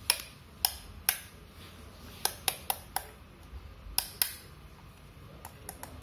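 Sharp, irregular clicks from a CJB119 siren control box being handled: fingers working its knob and switches and knocking its case, about nine clicks with a few faint ticks near the end. The siren itself is not sounding.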